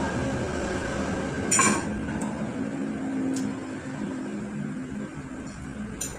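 Dishes clinking as food is picked at by hand during a meal: one sharp clink about a second and a half in, and lighter clicks later, over a steady low hum.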